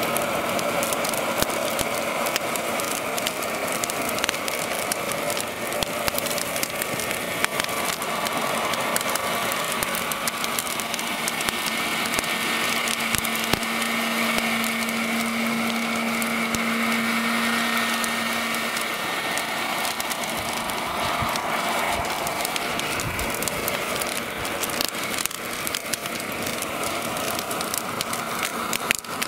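A wooden model building burning and crackling under water spray, over the steady whine of the electric fan and pump motors on radio-controlled firefighting models. The whine grows stronger for a few seconds around the middle.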